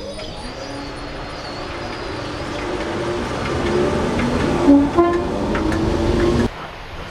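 Class 313 electric multiple unit pulling away from the platform, its running noise and motor hum growing louder as it gathers speed. A short, loud tone sounds about five seconds in, and the sound cuts off suddenly a second later.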